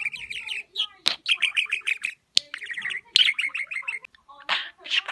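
Male budgerigar warbling and chattering: fast runs of short chirps mixed with clicks, in several bursts with brief pauses between them.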